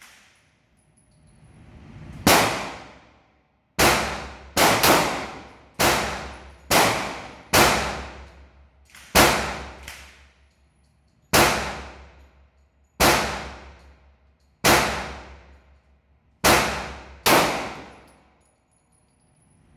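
9mm Glock pistol fired about thirteen times at an uneven pace, roughly one shot every second or two, with a couple of quicker pairs; each sharp shot dies away in a short ringing tail.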